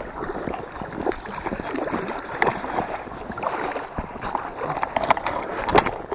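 Hooked jack pike thrashing and splashing at the surface close to the bank while it is played on the rod, in irregular splashes, the sharpest near the end.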